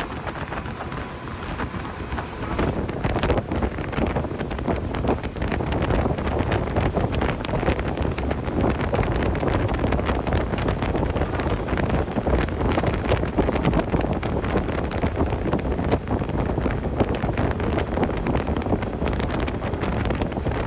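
Wind buffeting the microphone: a steady low rumble with irregular crackling gusts, getting louder about two and a half seconds in.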